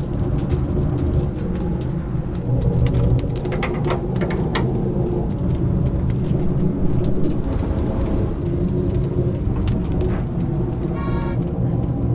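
Wood-fired chicken grill at work: a steady low mechanical hum under frequent sharp crackles and clicks, with a brief buzzing tone near the end.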